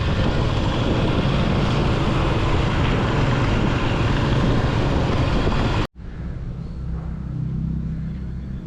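Motorcycle engine and wind noise while riding. About six seconds in it cuts off suddenly and gives way to a quieter, steady low engine hum.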